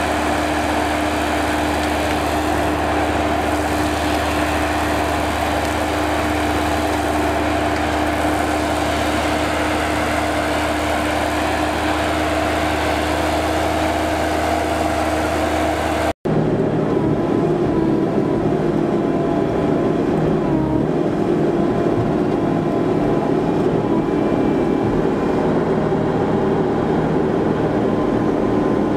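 Diesel engine of a Vimek 404 T3 small forestry harvester running at a steady note. About halfway through, the sound cuts and the machine is heard from inside its cab, louder and rougher.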